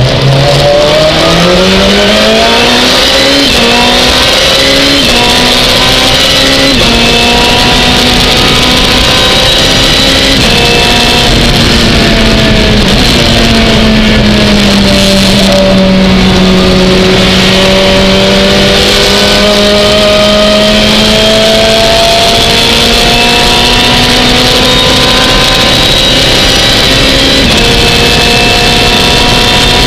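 Lotus Exige GT3 race car engine heard from inside the cockpit, revving up through the gears with quick upshifts about 3, 5 and 7 seconds in, then held at high revs. Midway the pitch sags slowly and builds again, with another upshift near the end, over a steady hiss.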